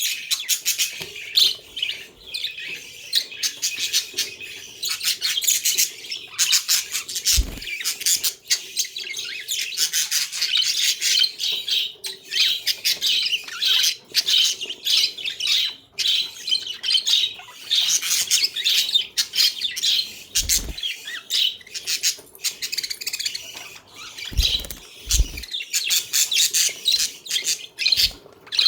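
A flock of budgies (budgerigars) chattering continuously with fast warbling chirps and squawks. A few short low thumps come through now and then.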